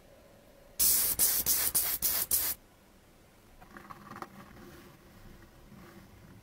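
Loud hissing spray or air blast in six or seven quick bursts over about two seconds, starting about a second in. Then faint scratching of a pencil tracing along a plastic stencil on paper.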